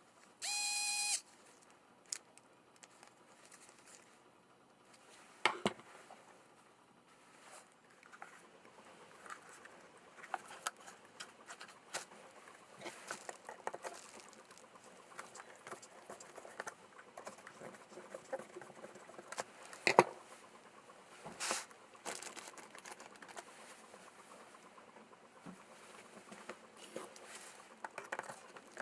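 Small irregular clicks, taps and rattles of parts being handled at a workbench, with a few sharper knocks. Near the start there is a short steady tone of under a second.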